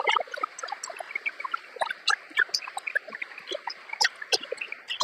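Applause from a small audience tailing off into scattered, irregular hand claps.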